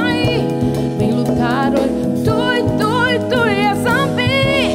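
Instrumental-backed theme music with a wavering, vibrato-laden melody over a steady low bass line. The melody stops near the end and a chord is left ringing.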